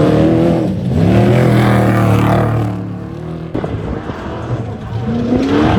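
Off-road race vehicle engine revving hard as it accelerates past, the pitch climbing twice through the gears before fading about three seconds in. Another engine rises in pitch near the end.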